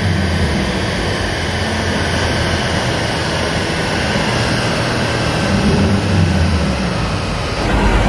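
Subaru Forester 2.5 XT's turbocharged 2.5-litre flat-four (EJ255), its rear muffler removed, running on a chassis dynamometer: a loud, steady roar of engine, exhaust and spinning dyno rollers. The sound changes shortly before the end.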